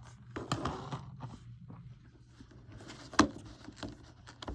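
Disc case and paper cover being handled: rustling and scraping, with a sharp click a little over three seconds in.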